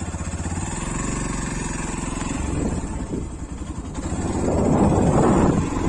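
Yamaha FZ V3 motorcycle's single-cylinder engine running steadily, then growing louder and rougher about four seconds in.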